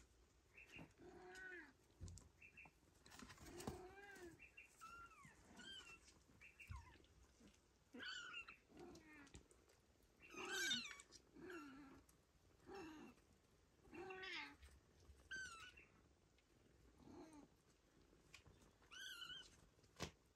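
Four-week-old Ragdoll kittens mewing: a string of short, faint, high-pitched mews every second or two, with some lower-pitched calls among them.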